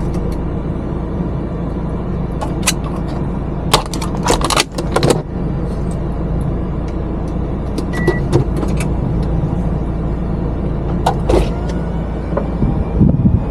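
Mazda Miata's engine running with a steady low hum while its convertible top is lowered: scattered clicks and clunks from the latches and roof mechanism, thickest about four to five seconds in, and a brief high beep about eight seconds in.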